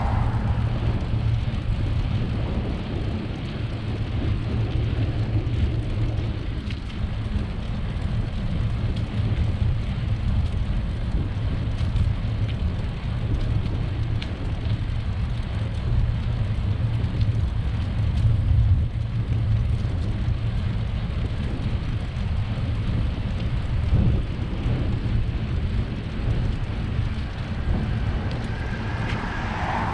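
Wind buffeting the microphone of a bike-mounted camera while riding, heard as a steady low rumble with no voices or music.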